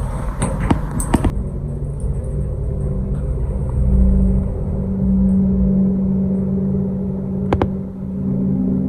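Lift-shaft pressurization fan running with a steady low rumble and hum, kept on by the fire alarm system while it is in alarm. A few sharp clicks come near the start and one more near the end.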